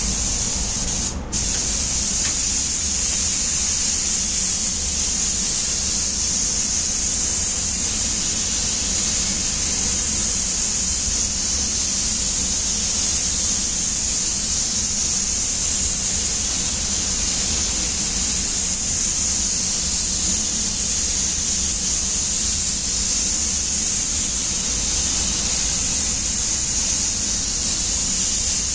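Gravity-feed compressed-air spray gun hissing steadily as it lays down the final coat of paint, with one brief break about a second in. A low steady rumble sits underneath.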